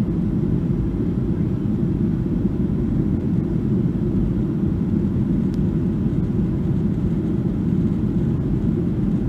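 Steady cabin noise of a Boeing 737-800 in flight during its climb-out: a deep, even rumble from the CFM56-7B engines and the airflow over the fuselage.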